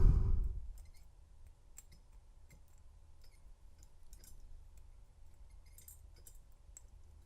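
A low thump right at the start, then faint, scattered small metallic clicks and ticks as steel handcuffs are handled and worked at the keyhole.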